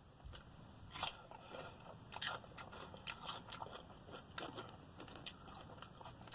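Crunching bites and chewing of raw celery with cheese, picked up close on a clip-on microphone: a loud crisp snap about a second in, then irregular crunches.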